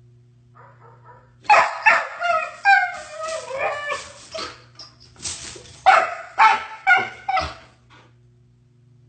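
A dog barking, yipping and whining in two bouts, the first starting about a second and a half in and the second about five seconds in, over a faint steady hum.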